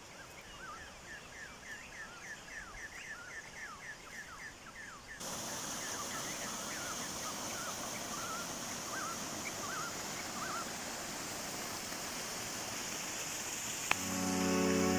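Forest birds calling in quick, repeated chirps, thick for the first five seconds and then sparser. From about five seconds in, a steady rush of waterfall water runs underneath. Guitar music comes in near the end.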